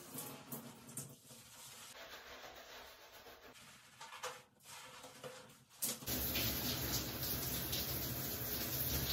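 Hands rubbing and working shampoo lather into wet hair, a soft uneven rubbing. About six seconds in, a louder, steady hiss sets in.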